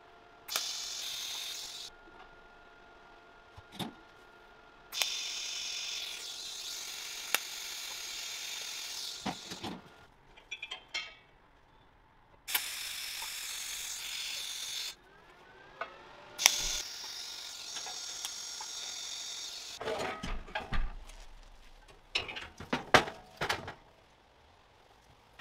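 TIG welding arc on stainless steel tube joints: four short welds, each a steady hiss that starts and cuts off abruptly. Near the end comes a clatter of knocks and clicks as the metal frame is handled.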